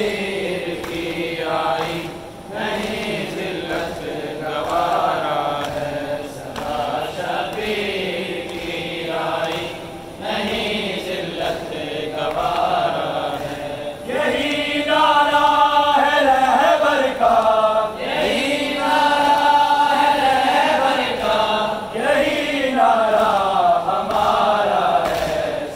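Voices chanting a Muharram mourning lament for Imam Husain in long, wavering held notes, growing louder about halfway through.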